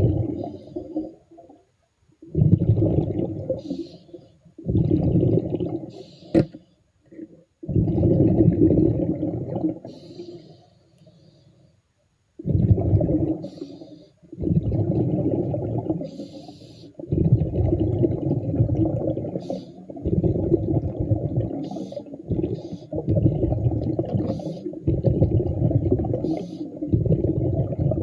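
Underwater bubbling rumble in repeated bursts of one to three seconds with short gaps between them, with faint hissy sounds in the gaps.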